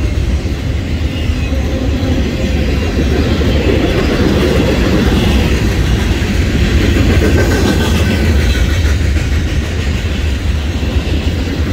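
Freight cars of a passing freight train rolling by: a loud, steady rumble of steel wheels on the rails.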